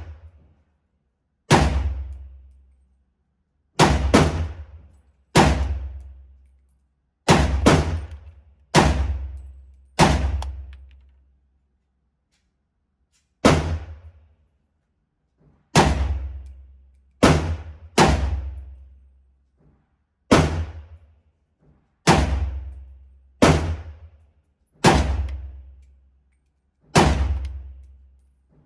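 Semi-automatic gunshots from a 7.62x39 AR-15 pistol: about fifteen single shots at uneven intervals of one to three seconds, each sharp report dying away over about a second.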